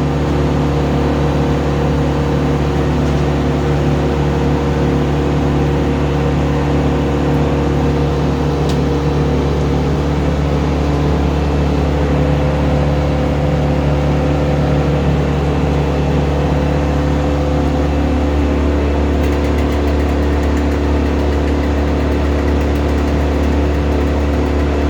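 A large engine running steadily at a constant speed, an even low hum that does not change.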